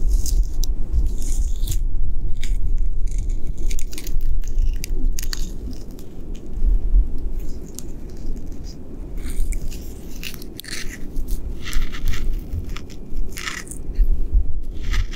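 Knit-gloved fingers scratching and rubbing rough tree bark: irregular dry scrapes, coming more thickly in the last few seconds, over a steady low rumble.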